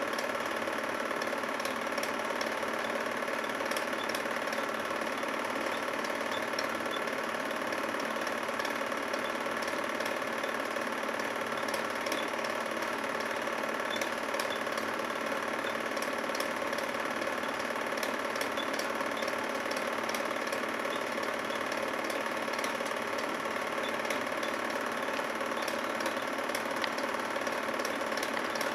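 Film projector running: a steady mechanical whir with faint ticking, unchanging throughout.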